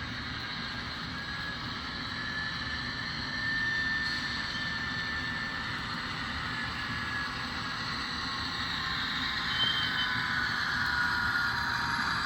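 Rapido HO-scale F59PH model locomotive's DCC sound decoder playing diesel locomotive running sounds through the model's small speaker as the train slows. It is a steady mechanical sound with high whining tones, and a short high brake squeal comes in near the end.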